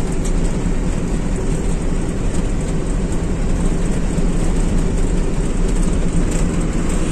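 Eicher truck's diesel engine running steadily at cruising speed, with tyre and road noise, heard from inside the cab as a constant low drone.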